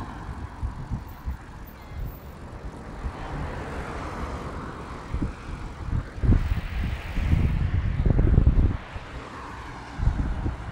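Wind buffeting a phone's microphone while cycling, in irregular low gusts that are strongest between about six and nine seconds in, over the rising and fading whoosh of cars passing on the road alongside.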